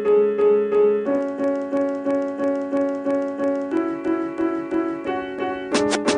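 Background music: repeated electric piano chords, about three a second, changing chord twice.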